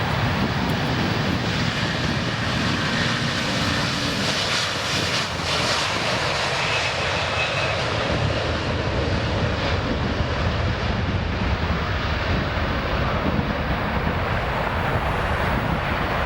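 Airbus A320 jet engines, a steady rushing noise with no break in level.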